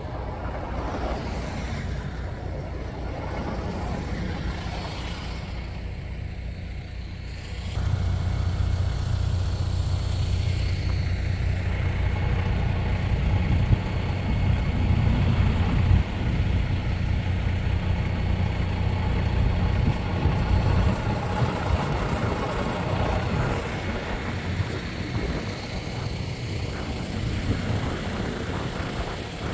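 Steady low rumble of road vehicles, which grows louder about eight seconds in.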